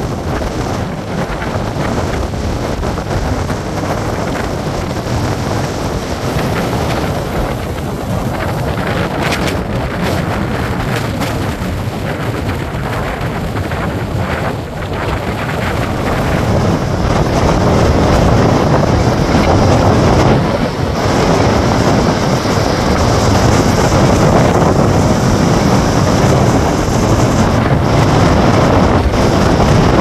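Very rough storm surf breaking on a beach in gale-force wind, with heavy wind buffeting the microphone. It grows louder about halfway through.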